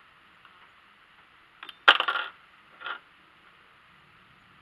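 A single shot from a Hi-Point 995TS 9mm carbine about two seconds in: a sharp crack with a short ringing tail, followed about a second later by a fainter crack.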